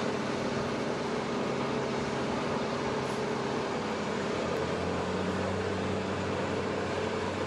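Steady drone of running aircraft machinery beside a parked C-130H Hercules: an even rush of noise with a constant hum under it.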